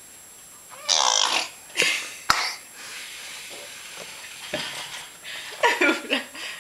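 A young child's wordless whining and grunting in a few short bursts, with one sharp click about two seconds in.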